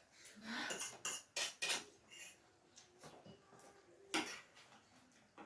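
Cutlery and plates clinking during eating: several short clatters in the first two seconds, then one more about four seconds in.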